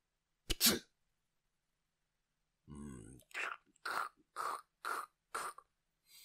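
A man's vocal noises into a close microphone, not words: a sharp cough-like burst about half a second in, then a short low grunt near the middle and a run of five quick breathy sounds about half a second apart.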